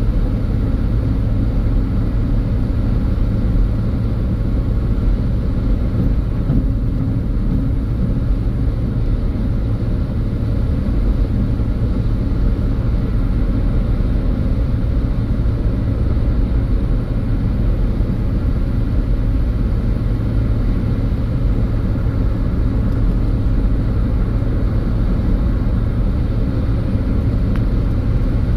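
Car driving at a steady speed: a constant low rumble of engine and tyre noise with no revving.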